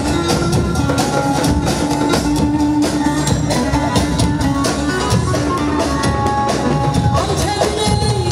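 Folk dance music played on several davul bass drums beaten with sticks, a steady, rhythmic pounding under a held melody line.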